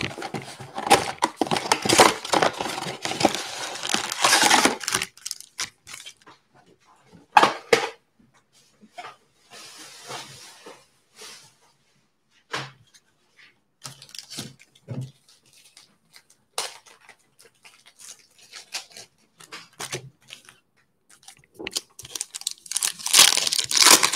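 Cardboard trading-card mega box being torn open and handled, a few seconds of ripping and rustling, then scattered taps and rustles as the packs are set down. About 22 seconds in, a foil card pack is torn open with a burst of crinkling.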